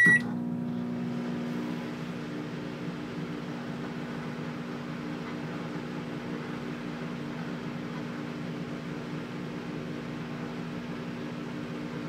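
A microwave oven beeps once briefly as it starts, then runs with a steady hum.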